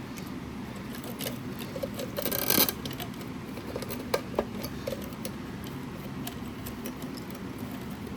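Hand handling of a speaker's parts during disassembly: a scraping rustle about two seconds in, then two sharp clicks a little after four seconds and scattered light ticks, over a steady low room hum.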